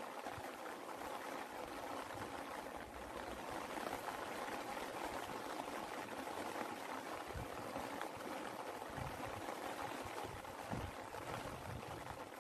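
Steady rain falling, an even hiss of raindrops with occasional soft low thuds.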